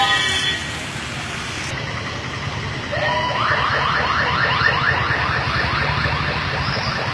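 Electronic siren or alarm that starts about three seconds in, sounding as a rapid run of rising sweeps, about four a second, over a steady low rumble of vehicle engines and traffic.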